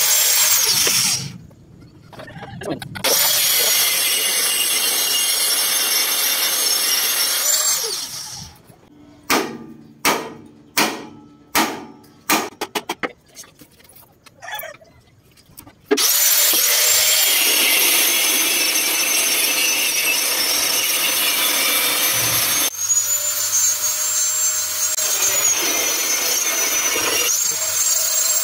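Electric angle grinder running against the rusted steel of a truck chassis frame, a steady high whine that dips in pitch as the disc is pressed in. It runs in two long stretches, with a break near the middle filled by about a dozen short knocks.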